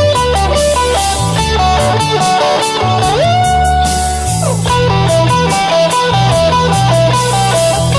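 Electric guitar lead on a Fender Stratocaster through the Joyo MA-10E practice amp's own overdrive, with reverb and delay, playing quick single-note runs over a backing track of bass and drums. About three seconds in, one note glides up and is held for over a second before dropping away, and the quick runs then resume.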